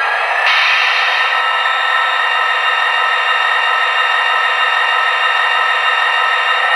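MRC onboard sound decoder in an HO-scale SD45-2 model locomotive playing diesel prime mover sound as the throttle is notched up. The engine sound steps up a notch about half a second in, holds steady, then begins to rise again near the end. It plays through the model's small speaker, so it sounds thin with no bass.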